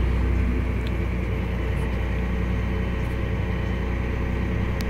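Tractor engine running at a steady working speed, a low even drone heard inside the cab while pulling a planter.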